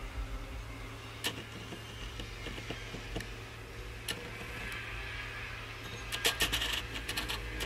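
Steady low hum with a few light clicks, then a quick flurry of taps and clicks near the end, as a machined aluminium handle is handled and turned over in the hands.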